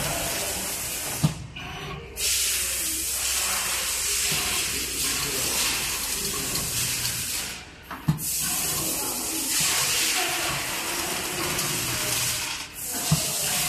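A steady, loud hiss like rushing air. It drops out briefly three times, each time with a sharp click: about a second and a half in, around eight seconds, and near the end.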